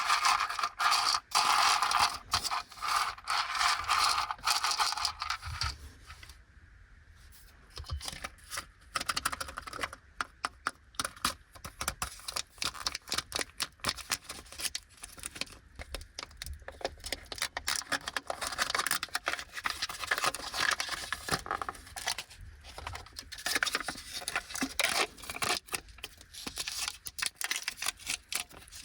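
Plastic snack and toy packaging crinkling and rustling as it is handled and opened, with many sharp little clicks and taps. There is a brief quieter pause about six seconds in.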